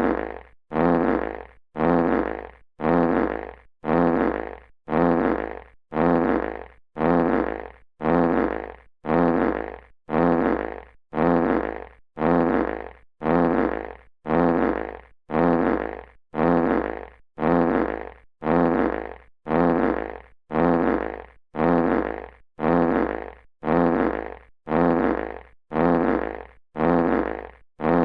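Classic fart sound effect repeated in a loop, about once a second: the same short, buzzy fart each time, starting at full loudness and dying away before the next.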